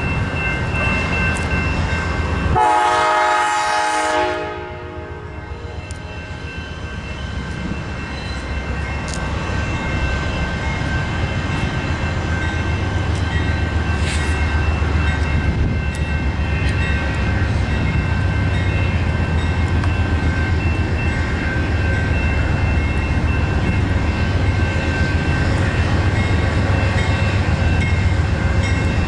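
A train horn sounds once, a chord held for under two seconds about two and a half seconds in. Then comes the steady rumble of a train on the line, its low drone building through the rest.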